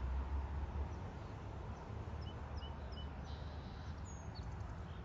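Open-air ambience: a steady low rumble of wind on the microphone, with a few short high bird chirps in the middle.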